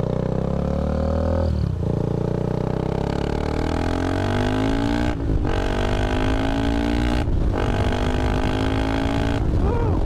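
KTM 390 Adventure's single-cylinder engine accelerating through the gears, its pitch rising in each gear, with three quick upshifts about two, five and seven seconds in.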